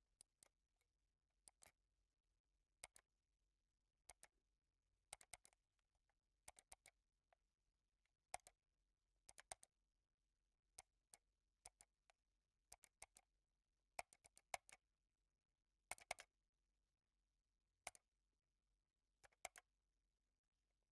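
Computer mouse buttons clicking: single clicks, double clicks and quick runs of three or four, spaced irregularly with short pauses between.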